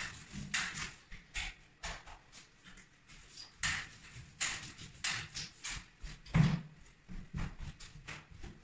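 Facade roller on a telescopic pole rolling thick joint compound along ceiling drywall joints: a wet, sticky swish with each stroke, about one or two strokes a second, unevenly spaced. A louder low thump comes about two-thirds of the way through.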